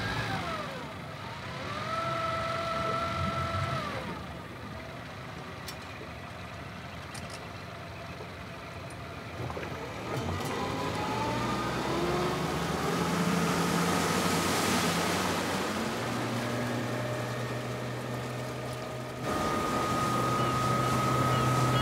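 Outboard motor of a rigid inflatable boat running, its pitch rising as the boat speeds up about ten seconds in, then holding steady at cruising speed. The sound gets suddenly louder near the end.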